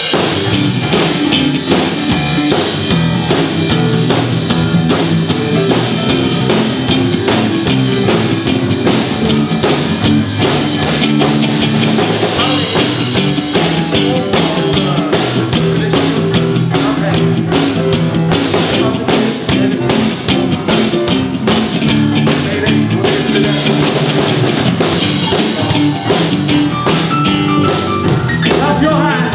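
A rock band playing live, with a drum kit keeping a steady beat under a guitar solo.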